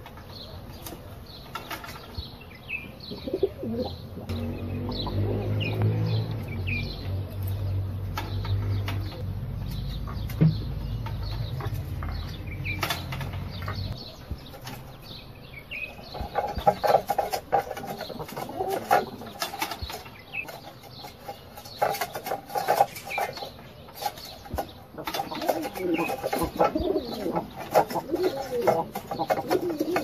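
Pigeons flapping their wings in short flurries that pick up about halfway through, with scattered small-bird chirps. A low steady rumble runs under the first half.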